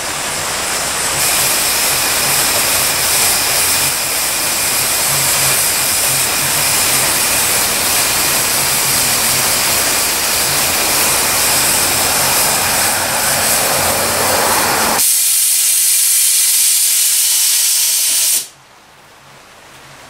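Steam boiler's pop-off safety valve lifting at about 135 psi and venting steam with a loud, steady hiss; the hiss thins out about fifteen seconds in and cuts off suddenly near the end as the valve reseats.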